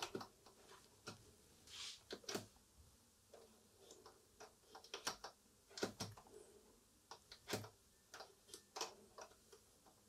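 Quiet, irregular clicks and taps from the DIY spring-loaded push-to-latch antenna fitting on a Sony CRF-320 radio, as the antenna cap is pushed down to latch and pressed again to pop the antenna up.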